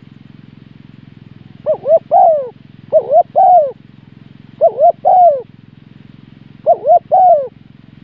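Spotted dove cooing: four phrases, each of two short coos and a longer third one, over a steady low hum.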